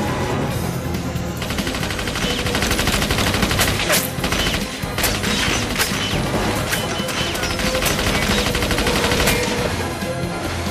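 Rapid automatic fire from a mounted machine gun, starting about a second and a half in and running for several seconds, with a few louder single cracks, over film-score music.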